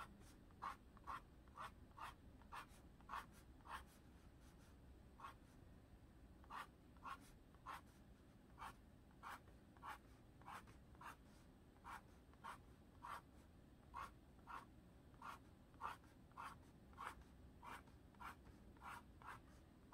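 Faint scratching of a graphite pencil on a stretched canvas as small curved scale shapes are sketched: short strokes about two a second, with a brief pause a few seconds in.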